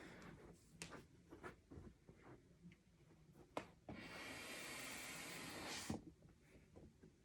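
A 12-inch balloon being fitted to a double-action hand pump with a few small clicks and rubbing, then about two seconds of air hissing through the pump as it starts to inflate the balloon, ending in a sharp click.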